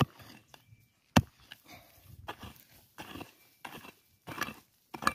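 Digging into stony ground with a hand digging tool, as a metal detectorist digs out a signal: two sharp strikes, the louder about a second in, then a run of scraping scoops about every half second to a second.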